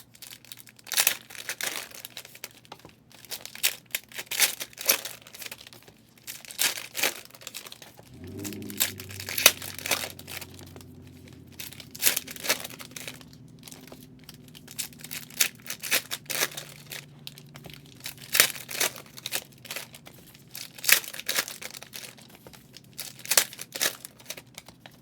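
Trading card pack wrappers being torn open and crinkled while the cards are handled, in an irregular string of sharp crackles and rips.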